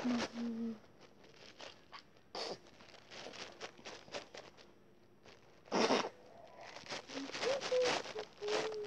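Paper and a spiral-bound activity book being handled: short scratchy rustles and scrapes, with a louder rustle about six seconds in.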